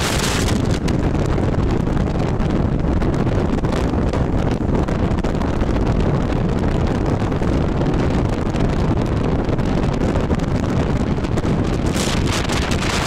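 Wind rushing over the microphone at the window of a moving coach bus, a steady low buffeting mixed with road rumble. The hiss thins out about half a second in and grows again about a second before the end.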